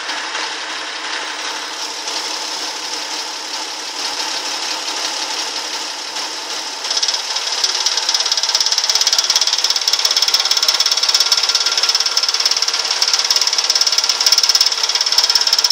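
Car engine idling with a fast, even knocking: the unexplained knock at idle that is the reason for the recording. About seven seconds in it gets suddenly louder and the rapid ticking stands out more.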